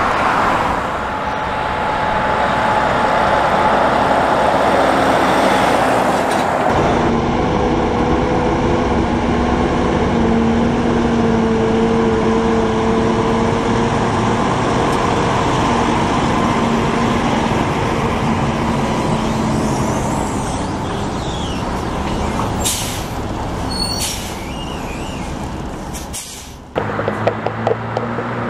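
Volvo FH trucks hauling race car transporter trailers. A truck's diesel engine and tyres grow louder as it passes on the road, then a diesel engine runs steadily at low speed as a truck moves off in a yard. Short air brake hisses come about three quarters of the way through, and another truck approaches near the end.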